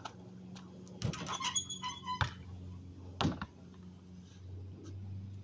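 A basketball thuds twice, about a second apart, and the second thud is the louder. Under it runs a steady low hum.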